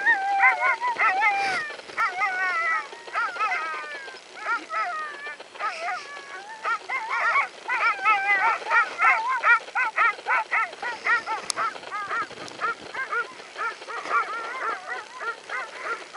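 A team of harnessed sled dogs yelping and whining together, many short, wavering high calls overlapping without a break.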